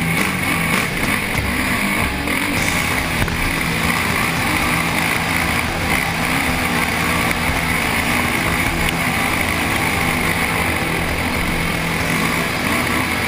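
Enduro motorcycle engine running at a steady pitch as the bike rides a dirt trail, picked up by a camera mounted on the bike.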